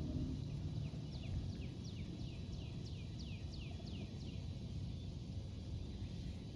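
A songbird singing a run of about a dozen quick downslurred whistles, roughly three a second, from about one second in to about four seconds in, over a low rumble of wind on the microphone.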